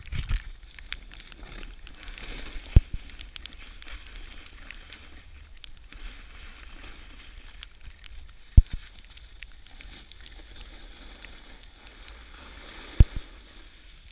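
Snowboard sliding and scraping over snow, a steady crackly hiss with a low rumble beneath it. A few sharp knocks cut through it, about three seconds in, a little past halfway, and near the end.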